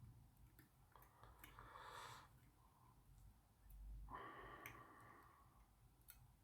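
Near silence: two soft breaths, one about one and a half seconds in and another about four seconds in, with a few faint small clicks from handling the watch movement's parts.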